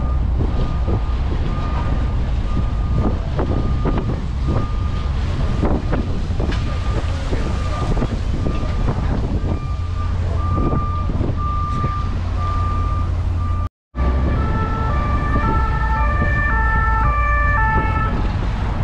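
Wind and engine rumble on the open top deck of a moving sightseeing bus. Over it, a single high tone beeps steadily about twice a second. After a brief dropout about two-thirds of the way in, it gives way to a run of short tones at changing pitches.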